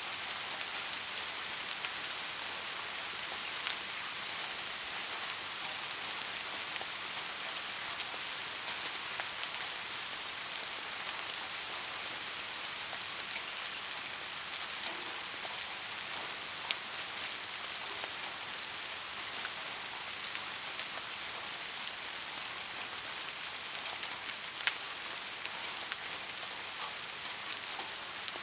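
Steady rain falling, a dense even hiss with scattered individual drops ticking through it, a few sharper ones standing out.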